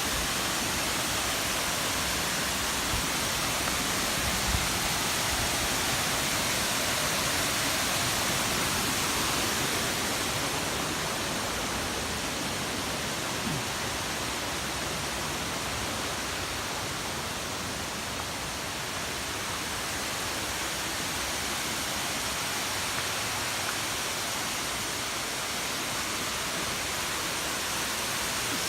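Waterfall pouring onto rocks: a steady, even rush of falling water.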